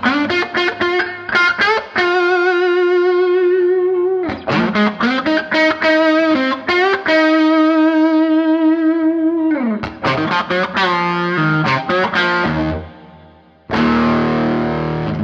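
Overdriven electric guitar, a Gibson Les Paul Custom played through a turned-up hand-wired Fender '57 Custom Twin-Amp. It plays a lead of quick note runs and two long held notes with vibrato, with a downward slide about ten seconds in. A final chord is struck near the end and left ringing.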